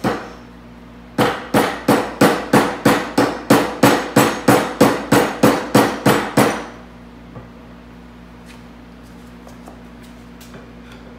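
Soft rubber mallet striking a wooden chair leg to drive a glued stretcher tenon home into its mortise. One blow, then a steady run of about seventeen blows at roughly three a second that stops about six and a half seconds in.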